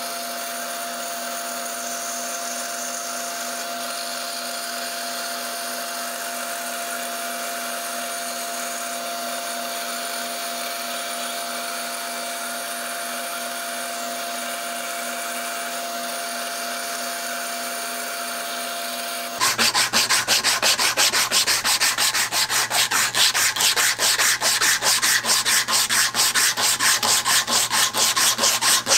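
Band saw running steadily as it cuts a wooden hammer-handle blank, with a steady hum tone. About 19 seconds in it gives way to a louder rasping rub in quick strokes: a 120-grit cloth sanding belt strip pulled back and forth by hand across the wooden handle.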